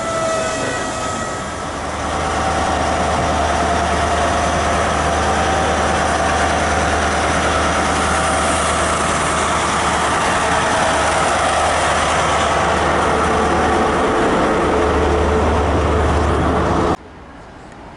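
GWR InterCity 125 high-speed train pulling past the platform, its Class 43 diesel power car giving a steady low drone over the rumble of the wheels on the rails. The drone strengthens about a second and a half in, swells again as the power car comes close, and cuts off suddenly near the end.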